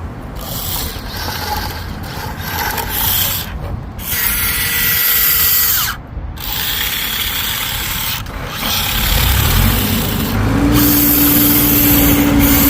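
A homemade toy backhoe loader being operated, its mechanism giving a whirring, ratcheting clatter that stops and starts several times. Near the end a steady engine hum comes in.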